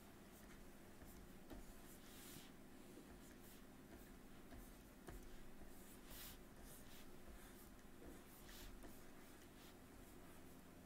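Faint scratching of a stylus drawing strokes on a tablet surface: short strokes at irregular intervals, a few of them longer, over a steady low room hum.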